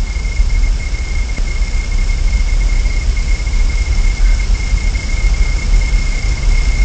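Wind rumbling on an outdoor nest-camera microphone, with a steady high-pitched whine over it.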